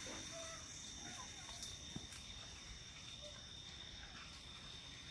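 Steady high-pitched insect chorus, with a few faint short chirps and a small tap about two seconds in.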